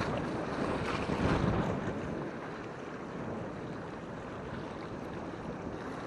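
Sea waves surging and foaming over rocks at the shoreline, with wind noise on the microphone. The wash is louder in the first two seconds, then settles to a steadier rush.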